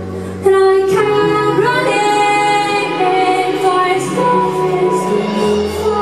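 A woman singing live into a microphone, holding long, gliding notes over sustained backing chords. Her voice comes in about half a second in, and the music gets louder.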